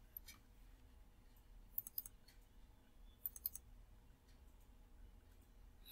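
Faint computer mouse button clicks. There is one click about a quarter second in, then quick pairs of clicks around two seconds and three and a half seconds in.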